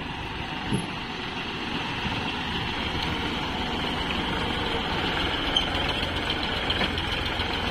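Sonalika tractor's diesel engine running steadily as it tows a trailer, growing gradually louder.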